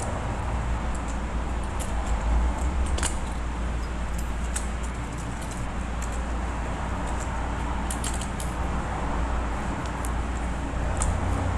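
Scattered light clicks and taps as a smartphone motherboard and its small parts are handled and fitted into the phone's frame, over a steady low room hum.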